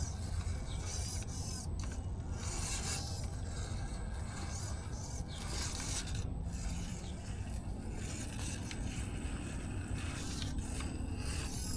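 Irregular scraping and rubbing noises over a constant low rumble, with a faint high whine in places, from an Axial Capra RC rock crawler working its way over rough, wet ground.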